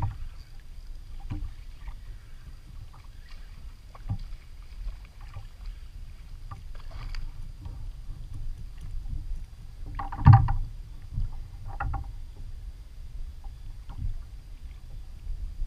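Low rumble of water and wind around a fishing kayak, with scattered knocks and splashes while a small trout is reeled in and landed. The loudest knock comes about ten seconds in.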